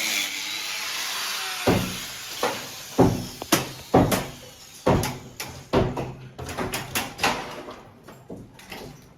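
A steady hissing noise that stops about a second and a half in, followed by a run of irregular sharp knocks and bangs, roughly one or two a second, each ringing briefly.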